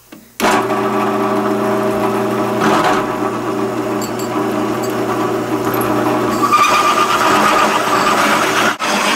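Drill press starting up about half a second in and running with a steady hum as its 1.5-inch hole saw at 580 RPM feeds into 3/8-inch aluminium plate. The cutting grows harsher and brighter from about six and a half seconds, with a brief break near the end.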